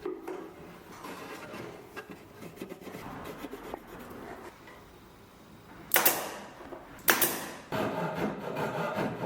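Woodworking at the bench: small knocks of wood being handled, two sharp knocks on wood about a second apart, then a steady scraping of wood starting near the end.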